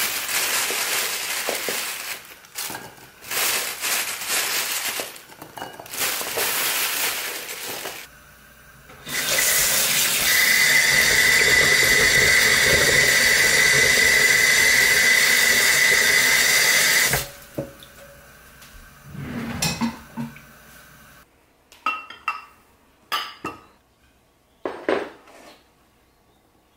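Kitchen tap water running into a glass bowl of chestnuts in a metal sink as they are rinsed and rubbed by hand: first in several short bursts, then a steady stream for about eight seconds. Near the end come a few light separate knocks.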